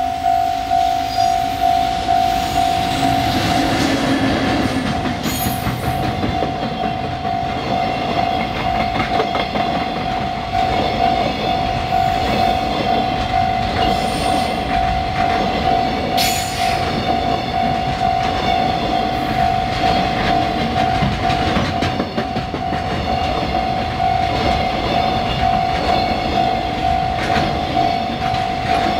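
JNR Class EF65 electric locomotive passing slowly, followed by a long train of container flatcars whose wheels clack over the rail joints. A steady high ringing tone sounds all the while, pulsing about twice a second at the start.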